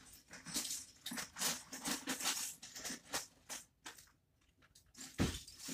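Loose Lego bricks clattering and rattling as a hand rummages through a container of pieces, a quieter pause, then a dull thump just before the end.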